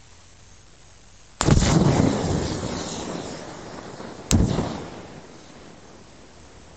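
Burning butane lighters bursting twice. There is a sharp bang about a second and a half in, followed by a rushing noise that fades over about two seconds. A second bang comes about four seconds in and fades away more quickly.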